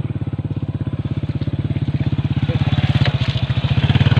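Motorcycle engine running at low revs close by, a fast, even putter that grows slightly louder.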